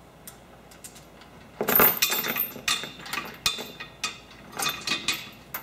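A 20-foot metal chain clinking and rattling link against link as it is handled, in a run of clattering bursts that begins about one and a half seconds in.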